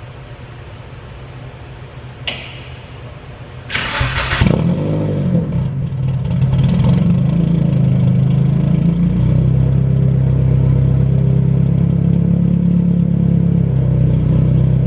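Turbocharged SR20DET inline-four in a Nissan 240SX S14 cranked on the starter about four seconds in; it catches, the revs waver for a few seconds, then it settles into a steady idle.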